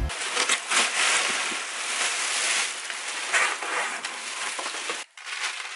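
Plastic air-pillow packing and cardboard box flaps rustling and crinkling as they are handled while unpacking a box. The rustling dies down near the end.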